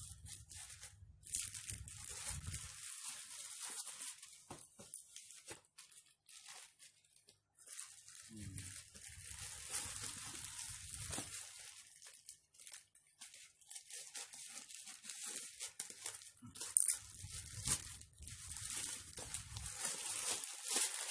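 Plastic shipping packaging being torn open and crinkled by hand, in several stretches of rustling a few seconds long, broken by brief pauses and sharp clicks.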